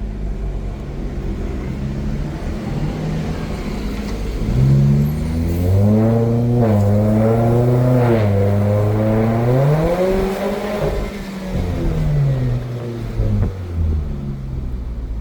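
Jaguar XE's engine through a sport exhaust, revving loudly. The pitch climbs about four and a half seconds in, holds high with a few small dips for around six seconds, then drops back toward idle.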